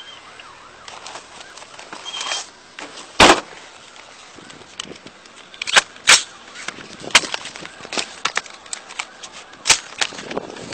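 Sharp clacks and knocks of a patrol rifle and gear being pulled from the back of a police SUV and readied. The loudest knock comes about three seconds in, several more follow near the middle and one near the end, with lighter rattles between them.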